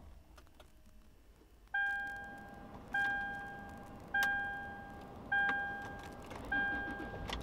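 Dashboard warning chime of a fifth-generation Toyota 4Runner: five single dings about a second and a quarter apart, starting about two seconds in, each fading out before the next.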